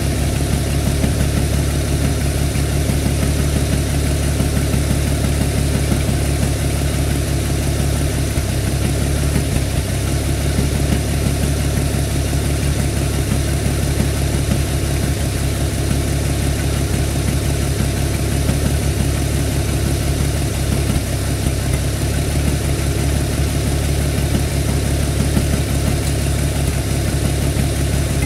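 An engine running steadily at idle, even and unchanging, with no revving.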